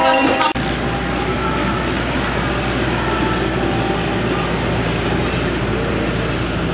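A train horn's steady chord cuts off about half a second in. Then a General Electric diesel locomotive's engine runs steadily with a low hum as the locomotive moves slowly along the narrow-gauge track.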